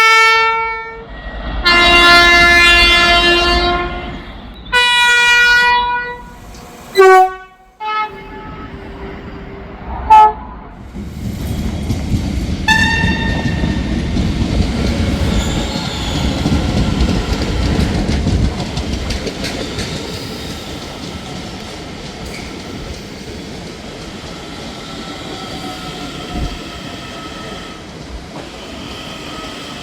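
Irish Rail train horns sounding a run of blasts, first three longer ones and then several short toots, followed by a train passing with wheel rumble that builds, peaks and slowly fades.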